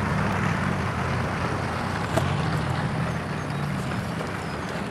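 A steady low motor hum under an even wash of outdoor noise, with a few faint bird chirps.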